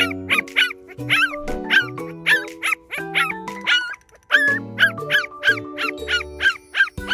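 A week-old puppy crying for its absent mother: a quick run of short, high-pitched yelping cries, about two a second, with a brief pause in the middle. Background music plays underneath.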